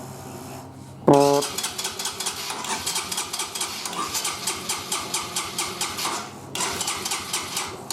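A short horn beep about a second in, then the Hanway 125's electric starter cranking the engine in a fast, even chatter for about five seconds, a brief pause, and another burst of cranking near the end, with the engine not catching.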